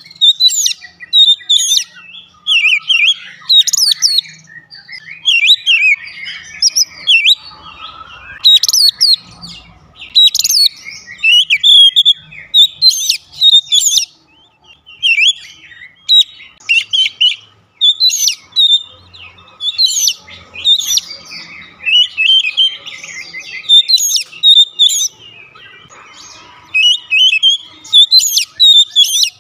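Oriental magpie-robin (kacer) singing in full, continuous song: loud, varied whistled phrases and chirps, one after another with short gaps.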